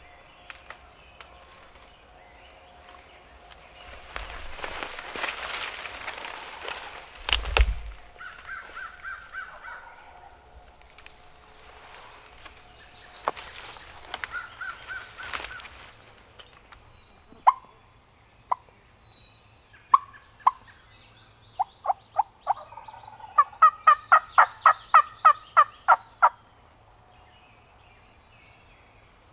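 Brush rustling as someone moves through leafy undergrowth, with a thump about seven seconds in, then wild turkey yelping: a few spaced, sharp yelps that quicken into a fast run of about a dozen loud yelps.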